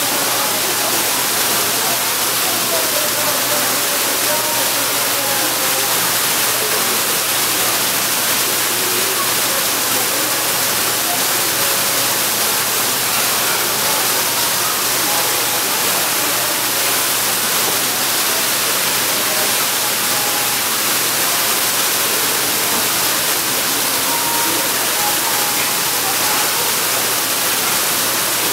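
Artificial waterfall: a sheet of water pouring down a wall of glass panels into a shallow pool, splashing steadily and evenly throughout.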